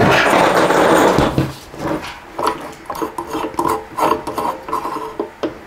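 Handling noise while unpacking an item: a loud rustle of packing material for about the first second and a half, then a quieter run of quick small clicks and rattles as the item is handled.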